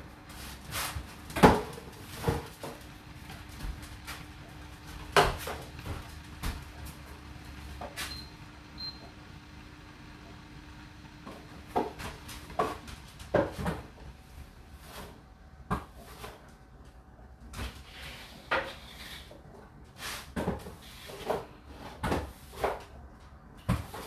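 Whirlpool WFO3P33DLXUK dishwasher running its 65 °C main wash: irregular knocks and thuds from inside the closed tub, over a low steady hum that stops about halfway through.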